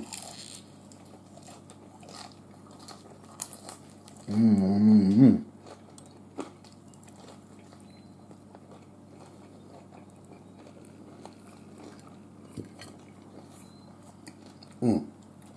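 A person chewing and biting into crisp fried chicken, faint wet mouth clicks throughout. A hummed "mmm" of about a second comes about four seconds in, and a short vocal sound near the end.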